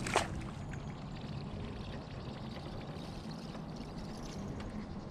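Water rushing and gurgling steadily around a small fishing boat's hull. A brief sharp swish comes just at the start.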